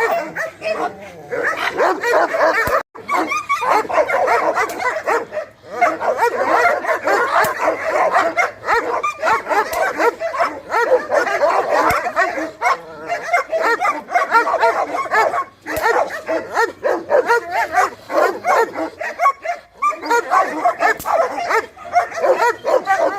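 Dogs barking and yipping in a dense, continuous chorus, with a few brief breaks.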